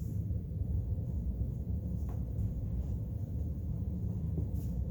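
Steady low rumble of background noise, with no speech or singing.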